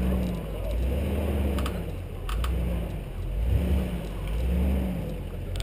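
Nissan GU Patrol's TB45 4.5-litre straight-six petrol engine pulling off-road, its revs rising and falling in swells about once a second, with a few short sharp knocks.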